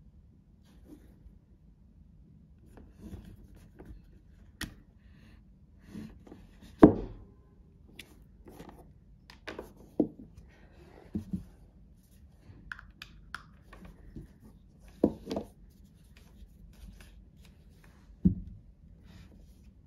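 An AirPods Pro plastic charging case and its cable being handled and set down on a desk: a string of small clicks and taps, with a few sharper knocks spread through.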